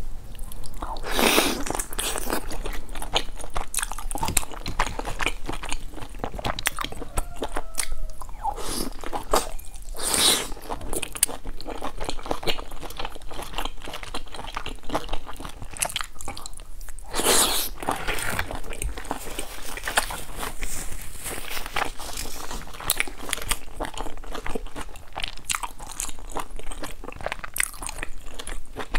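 A person biting into and chewing large pan-fried stuffed buns, a steady run of wet mouth clicks and smacks, with a few louder bites about a second in, around ten seconds and around seventeen seconds.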